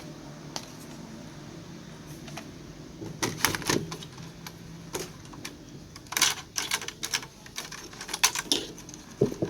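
Irregular clicks, taps and clatter of small hard objects being handled, starting about three seconds in and coming in clusters, over a faint low hum.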